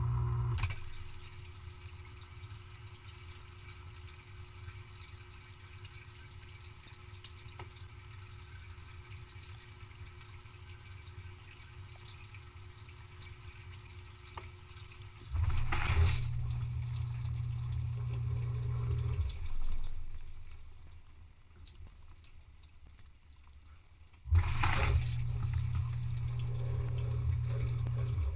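Dishwasher running through its cycle: water trickling and dripping inside the tub, and a pump that starts abruptly with a low hum about halfway through, runs for about four seconds and stops, then starts again near the end.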